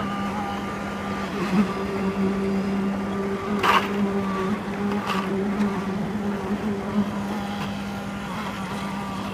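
Construction machinery engine running steadily at a constant pitch, with two sharp knocks about three and a half and five seconds in.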